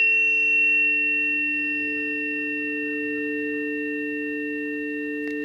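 Two planetary tuning forks, tuned to Venus and Saturn, ringing together as a steady two-note tone with faint high overtones, fading slowly.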